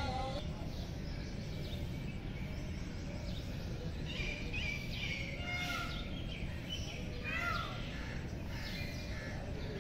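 Steady low outdoor background noise with birds chirping, a run of short quick calls from about four seconds in.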